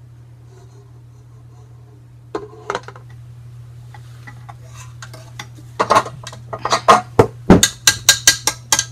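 A wire whisk clicking and clinking against a stainless steel mixing bowl of whipped soap as it is worked by hand: two knocks a little over two seconds in, then from about six seconds a fast run of sharp metal clicks, several a second.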